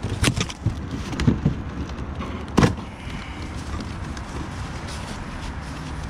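Cardboard box being torn open by hand and its flaps pulled back: a few sharp rips in the first three seconds, the loudest about two and a half seconds in, then quieter handling of the cardboard.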